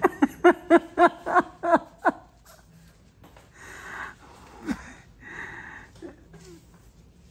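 A person laughing: a quick string of about eight high-pitched 'ha' bursts, each dropping in pitch, over the first two seconds, then two long wheezy breaths of laughter.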